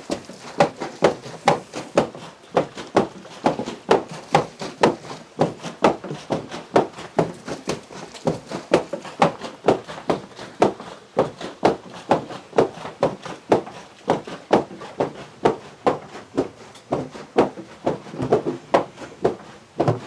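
Wooden hammers of a water-powered fulling mill (pivă) pounding woolen cloth, an even run of heavy wooden knocks at about two and a half a second.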